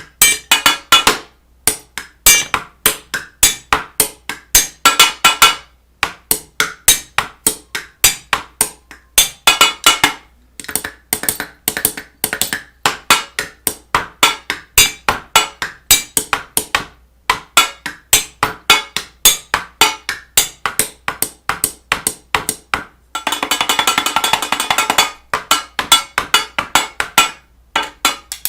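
A rapid, uneven series of sharp taps, several a second, in bursts with short pauses between them, and a denser rattling stretch about 23 seconds in.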